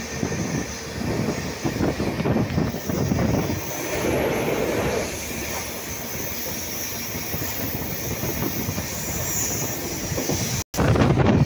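Passenger train running, heard from inside a coach at an open window: wheels rumbling and clattering over the rails, with rushing air. The sound drops out for a moment near the end and comes back louder.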